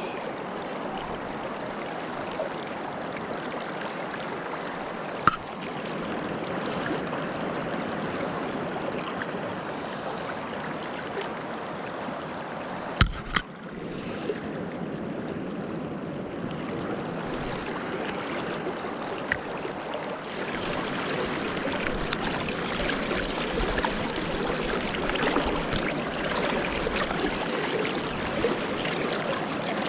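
Steady rush of a swift river current flowing past. A couple of sharp knocks cut through it, one about five seconds in and one just past the middle.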